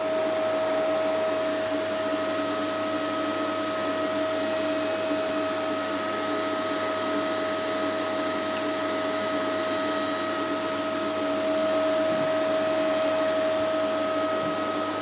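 Steady whine over a constant fan-like hiss, unchanging throughout: a 5.5 kW hybrid inverter running on the bench after its bus power supply repair.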